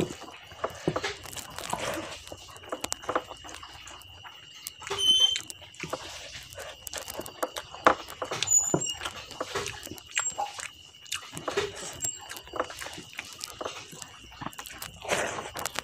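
Close-miked eating sounds: wet chewing and lip smacking, with fingers squishing and mixing rice and dal on a steel plate in irregular short clicks and squelches. A steady high whine sits underneath.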